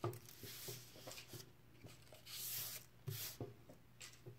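Paper craft pieces being handled on a tabletop: a soft click, a short rustle of paper about two seconds in, and a few light taps.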